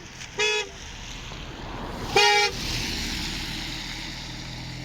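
A vehicle horn gives two short toots, the second a little longer and louder. Engine and road noise then swells and stays steady.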